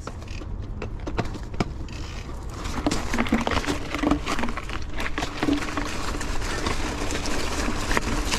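Mountain bike rolling over a rough dirt trail: steady tyre noise with frequent rattling clicks, and wind rumble on the microphone. It builds up about two seconds in.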